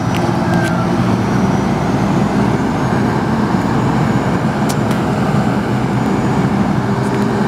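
2005 Ford F650 dump truck's engine running steadily while its hydraulic hoist raises the dump bed.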